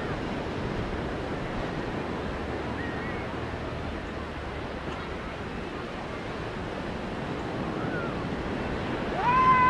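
Steady rushing outdoor noise, with a few faint short chirps. Near the end comes a louder drawn-out animal call that rises, holds and falls.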